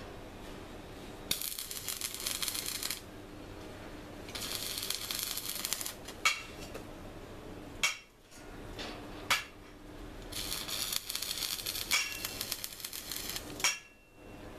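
Electric arc welding on steel rebar: three runs of dense, crackling hiss, each one to three seconds long, with sharp single clicks between them.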